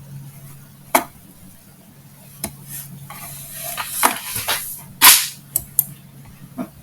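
Several sharp clicks and knocks, with a stretch of rustling in the middle, over a low steady hum: handling noise at a computer while the audio connection is being checked.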